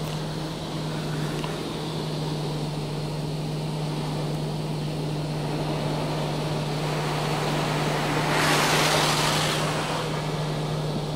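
Touch-free automatic car wash spraying the car during its soak stage, heard from inside the car's cabin as a steady hiss of water over a constant low hum. About eight seconds in the spray swells louder for under two seconds as the jets pass close, then drops back.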